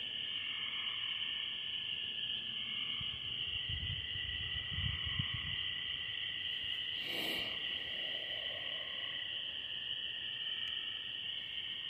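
A steady, shrill chorus of night insects, with a softer pulsing call repeating underneath. There is one brief noise about seven seconds in.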